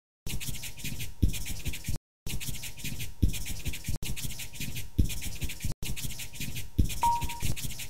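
Marker scribbling on paper, a continuous scratchy texture, with a low thump every couple of seconds. A short high ding comes about seven seconds in.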